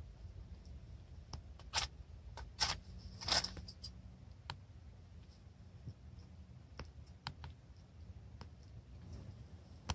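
A match struck against its box, with three quick scrapes between about two and three and a half seconds in as it catches, then a few faint clicks and taps.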